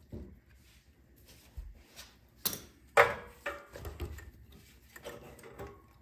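Small clicks and light taps of a screwdriver and metal parts as a snowblower carburetor's throttle linkage and spring are fitted by hand. The sharpest click comes about three seconds in.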